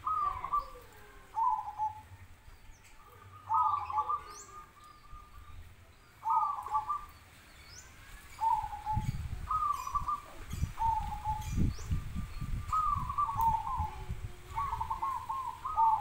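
Zebra doves (perkutut) cooing back and forth: short phrases of quick, trilled coos, repeated every second or two. A low rumble sounds under the calls in the middle.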